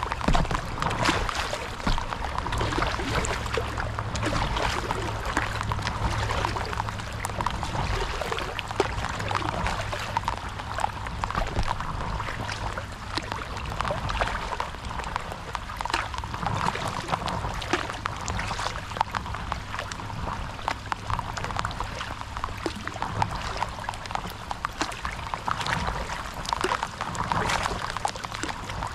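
Water trickling, dribbling and splashing in many small drops around a paddleboard on open water, over a low rumble.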